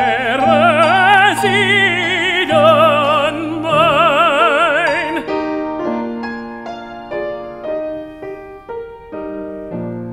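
Operatic tenor singing with wide vibrato over grand piano; his last held note ends about five seconds in. The piano then plays the closing bars alone, getting quieter.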